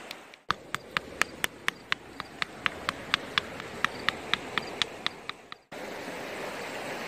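A hand-held rock repeatedly striking creek stones to break them up, giving sharp, ringing clacks about four times a second. The clacks stop suddenly and the creek's steady rushing water takes over.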